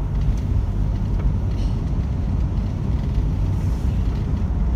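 Steady low rumble of a car driving, engine and road noise heard from inside the cabin.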